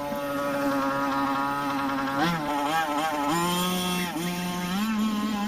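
Small two-stroke 1/5-scale RC car engine running with a buzz, its pitch holding steady, then dropping and rising again as the throttle is eased and opened.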